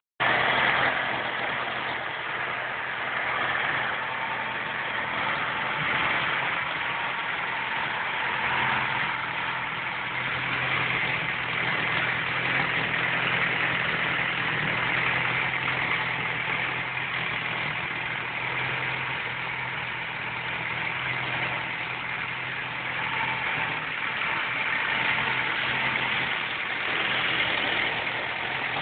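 Coventry Climax Godiva four-cylinder water-cooled side-valve stationary engine, about 850cc, running steadily at a constant speed, with gentle rises and falls in level.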